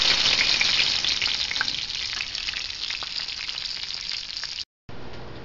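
Crumb-coated chicken breasts frying in shallow vegetable oil: a dense crackling sizzle, loudest at first and easing off. It cuts out briefly near the end and comes back quieter.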